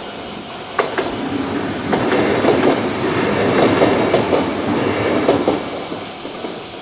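JR 103 series electric multiple unit passing, its wheels clattering rhythmically over the rail joints. A couple of sharp knocks come about a second in, the clatter is loudest in the middle, and it eases off near the end.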